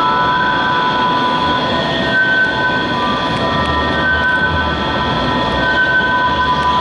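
Manyosen MLRV1000 low-floor tram rolling slowly around a tight curve, its wheels squealing in several steady high tones over a low rumble, one of the tones swelling and fading several times.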